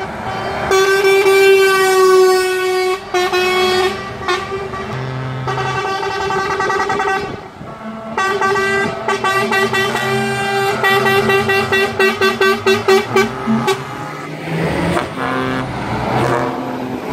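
Parading trucks sounding their air horns: long held blasts, then a quick run of short toots about eleven seconds in, with a deeper horn joining now and then.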